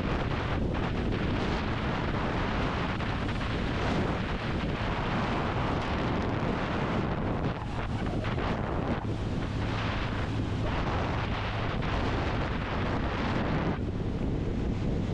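Wind rushing and buffeting over the camera microphone on a moving motorcycle, with the bike's engine running steadily underneath.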